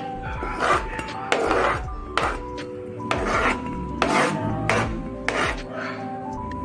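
Diced onion being scraped off a wooden chopping board into a steel bowl, in a series of short rasping scrapes about one a second.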